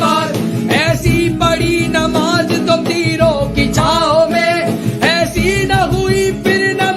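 A devotional Urdu naat in praise of Ali, a solo voice singing held, bending notes over steady instrumental backing.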